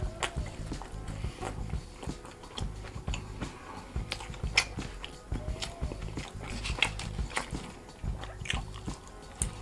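A person chewing and biting into a slice of pizza: irregular wet mouth clicks and soft crunches of crust.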